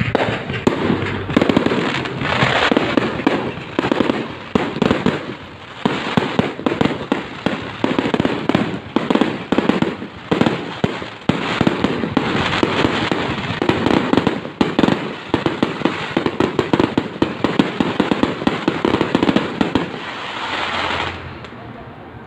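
Aerial fireworks display: a rapid, continuous string of bangs with crackling bursts, loud throughout, dying away shortly before the end.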